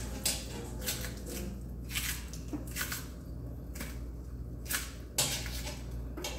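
Green plantain being peeled over a sink: short, irregular wet scrapes and squishes as the tough green peel is pried and pulled away from the flesh.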